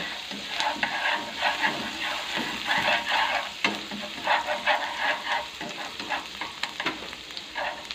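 Minced dried shallots and garlic sizzling in hot lard in a nonstick frying pan, being fried until fragrant, with irregular crackling. They are stirred with wooden chopsticks that scrape and tap the pan.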